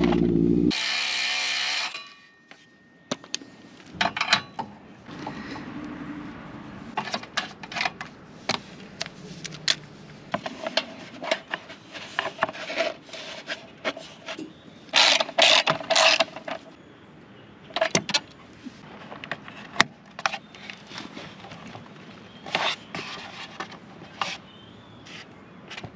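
Hand-tool work fitting a car's brake duct: scattered clicks, knocks and scrapes of metal and plastic parts, with two longer bursts of a power drill, one near the start and the loudest about 15 seconds in, boring the hole for a rivet nut.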